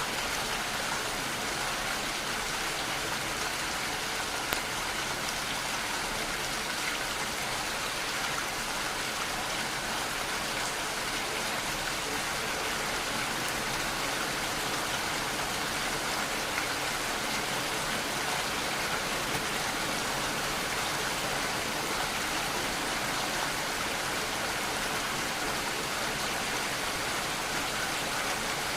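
Steady rainfall, an even hiss of rain with a few separate drop ticks here and there.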